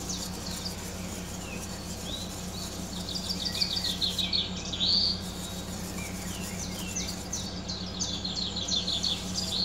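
Wire whisk scraping and clicking against the sides and bottom of a stainless steel saucepan, stirring thick pudding in quick, irregular strokes, over a steady low hum.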